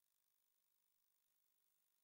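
Near silence: only faint digital hiss, with nothing else sounding.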